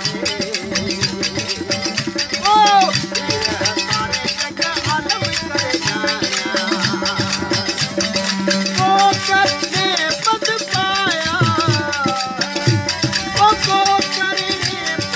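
Folk bhajan music: a wavering, bending melody line over a steady drone, driven by fast, dense hand percussion with rattling strokes.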